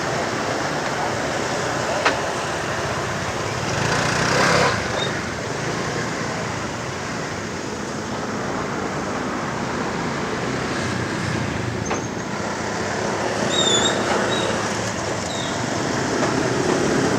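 Steady road traffic noise, with a sharp click about two seconds in and a few short high chirps near the end.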